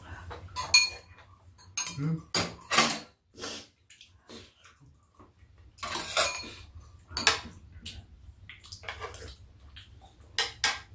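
Metal spoons clinking and scraping against ceramic bowls at a meal, in irregular strokes with pauses between, some clinks ringing briefly; chopsticks scrape a frying pan near the end.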